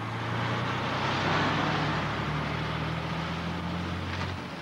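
Heavy tipper lorry driving past close by: a low diesel engine drone with tyre and road noise that swells to a peak about a second in, then eases off.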